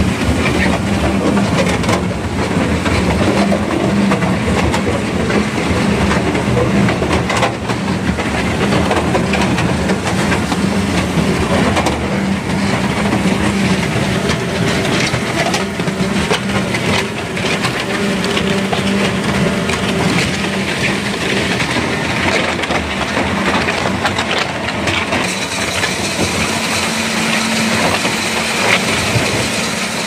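Concrete mixer pump running: a steady engine hum under the clatter and grinding of its paddles churning wet concrete and gravel.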